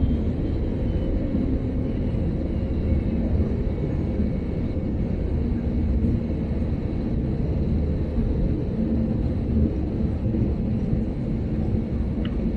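Steady low rumble of an Airbus A320neo's cabin at cruise: engine and airflow noise heard from a passenger seat, with a faint high steady tone over it.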